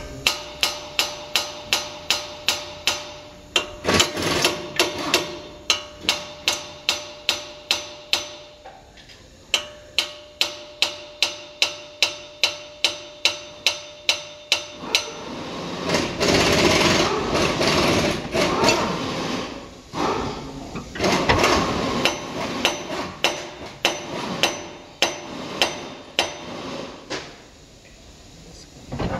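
Hammer blows on the steering knuckle and front wheel hub bearing assembly of a 2018 Hyundai Sonata, driving the bearing assembly out. They come about three a second with a metallic ring. About halfway through they give way to a few seconds of continuous noise, then resume more irregularly.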